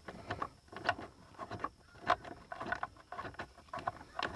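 Irregular light clicks and scrapes of a T27 Torx bit and socket being turned by hand, backing out the screw that holds the airbag in the steering wheel.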